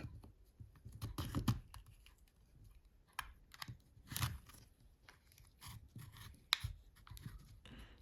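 Plastic housing of a Siemens C62 mobile phone being handled and pried at to open it: scattered plastic clicks, taps and short scrapes.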